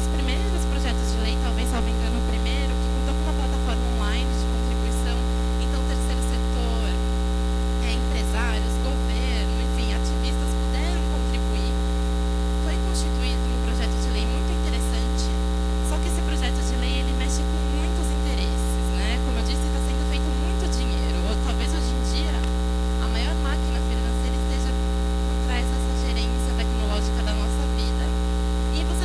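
Loud, steady electrical mains hum: a constant low drone with a stack of overtones that does not change.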